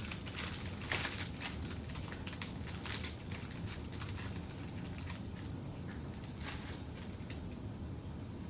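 Handling noise from a lighter and its small parts: irregular light clicks and rustles, with a sharper click about a second in.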